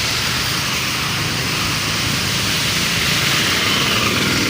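Steady running noise of a bus on the move, engine and road noise heard from inside.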